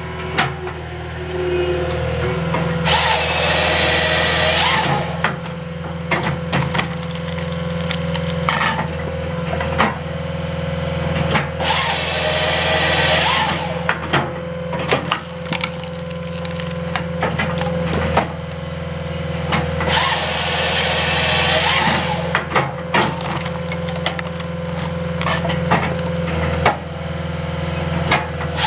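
Halverson HWP-140B skidsteer firewood processor at work: its saw cuts through the log three times, each cut about two seconds long and about eight seconds apart. Between the cuts, wood cracks and pieces knock, over the steady hum of the skidsteer's engine and hydraulics.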